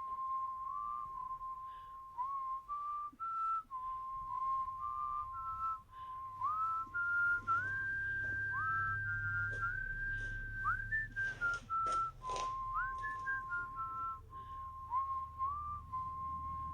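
Someone whistling a slow tune: a clear single tone that holds and steps or slides up and back down, with faint clicks and a low hum underneath.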